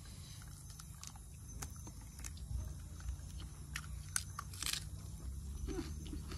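Close-up eating sounds: chewing and lip smacks from people eating rice and chicken gravy by hand, heard as scattered soft clicks over a steady low hum.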